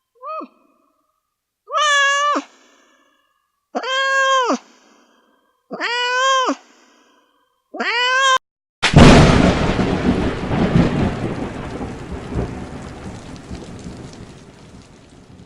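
A domestic cat meowing: one short mew, then four drawn-out meows about two seconds apart. About nine seconds in, a sudden loud thunderclap cracks and then rumbles, slowly fading away.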